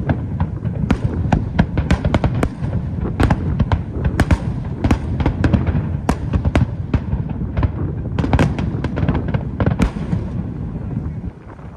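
Aerial fireworks going off in a dense, rapid run of bangs and crackles over a continuous low rumble, easing off shortly before the end.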